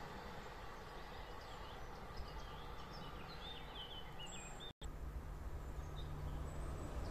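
Small birds chirping over a faint outdoor rumble. About two-thirds of the way through there is an abrupt cut, then a low hum and rumble of an approaching train that slowly grows louder.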